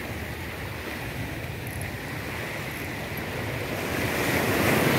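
Small waves washing up onto a sandy beach in a steady rush of surf; the wash grows louder near the end.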